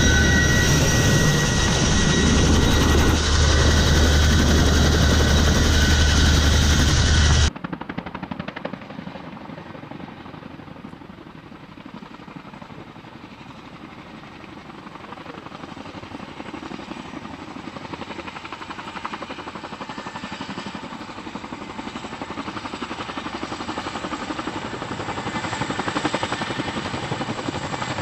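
Loud, steady drone of a CH-47 Chinook heard from inside its cabin, with a deep hum and high whines. It cuts after about seven seconds to the fast, even rotor thump of two tandem-rotor Chinooks approaching from a distance, growing louder as they come in to land.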